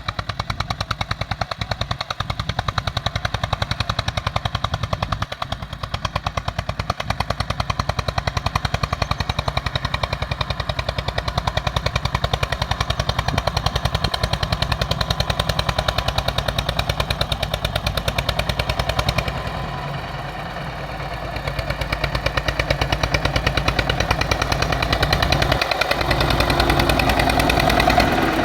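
Tractor engine running steadily while ploughing, with a rapid, even chugging beat; it eases briefly a little past two-thirds through, then picks up again.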